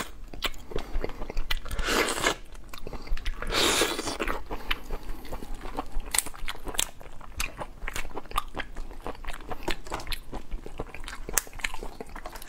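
Close-miked crackling and snapping of langoustine shells being pulled apart by hand, mixed with chewing. There are many sharp cracks throughout and two longer, louder mouth sounds about two and four seconds in.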